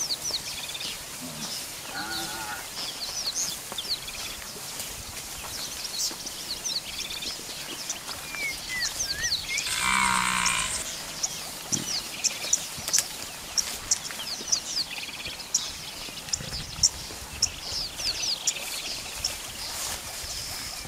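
Bushveld ambience: many short bird chirps throughout, with a louder animal call lasting about a second about ten seconds in.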